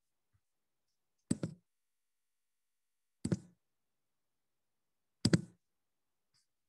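Three short double taps or clicks on a laptop close to its microphone, about two seconds apart, with near silence between them.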